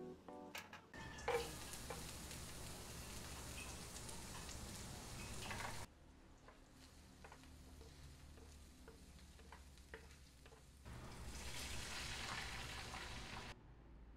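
Hot oil sizzling in a frying pan, first as fried tofu is lifted out with tongs, then quieter with small scrapes and taps as chopped garlic and onion are stir-fried with a wooden spatula. The sizzling swells again for a couple of seconds about eleven seconds in.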